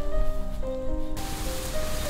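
Background music: a melody of held notes that step up and down in pitch, with a faint hiss joining it about a second in.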